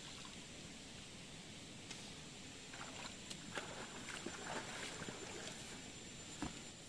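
Shallow stream running, with splashing as a person scoops water by hand and then wades through it; a cluster of splashes and sloshing steps falls in the middle.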